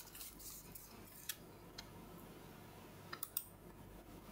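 A few faint computer mouse clicks over quiet room tone: one about a second in and two close together about three seconds in.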